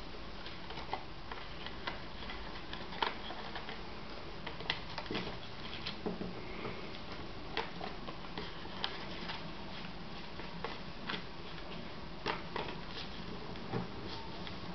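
A sheet of paper crackling and rustling as it is folded and its creases pressed down by hand: irregular soft clicks and crinkles over a steady background hiss.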